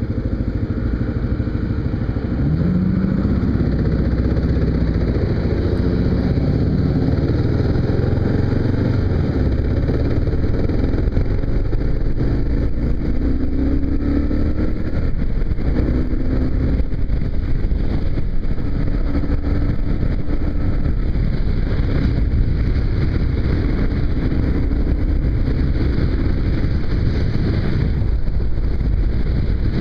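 Kawasaki KLR's single-cylinder engine running at riding speed, its pitch rising about two seconds in as it accelerates, under a steady low rush of wind.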